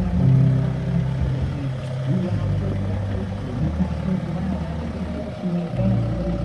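BMW M6 engine running, its revs shifting up and down several times.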